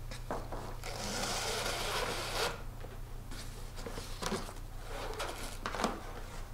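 Webbing strap drawn through a slot in a corrugated plastic swarm trap: a rasping slide lasting about a second and a half, then a few light knocks as the strap and box are handled.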